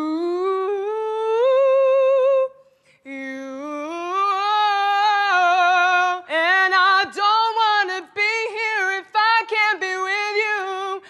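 A woman singing unaccompanied: a long held note that slides upward and swells, a short break about two and a half seconds in, then more held phrases with vibrato that break into quicker ornamented runs in the second half.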